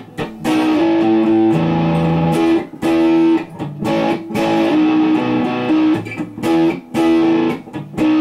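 Telecaster-style electric guitar played through a Jet City 20-watt tube amp, freshly retubed, with the gain pushed for a little distortion and no effects: a riff of held single notes and short chords, with brief stops between phrases.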